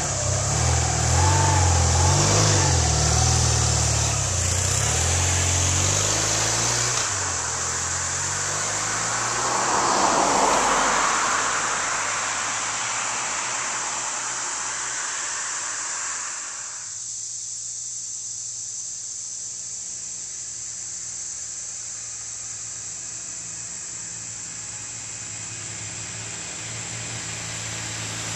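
Passing road traffic: a vehicle engine falling in pitch and fading over the first several seconds, a swell of tyre and engine noise from a vehicle passing about ten seconds in, then a quieter stretch. Near the end a BMW R100R's air-cooled boxer-twin engine grows louder as the motorcycle approaches, over a steady high hiss.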